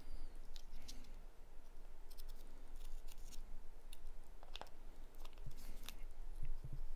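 Lid of a taped container being pried loose with a pocket knife: scattered clicks, scrapes and crinkles at irregular times.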